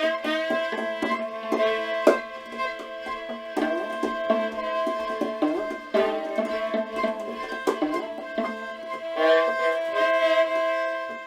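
Instrumental music of several sustained pitched tones with a few sharp percussive strikes, the loudest about two seconds in.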